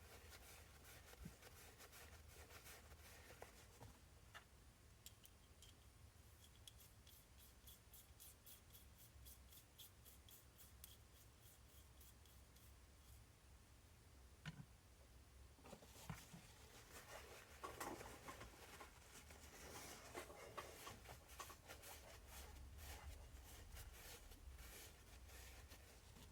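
Faint clicking and rubbing of small RC shock parts being handled and fitted by hand, sparse at first and busier in the second half.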